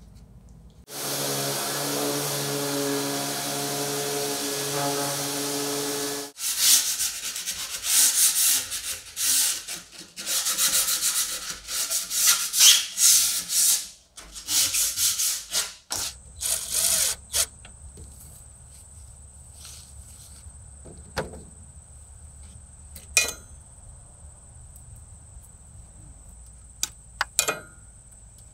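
Sanding wood. A small motorised tool runs steadily for about five seconds. Then come about ten seconds of rough back-and-forth strokes of abrasive on wood. Near the end there are a few short scrapes over a faint, steady, high insect drone.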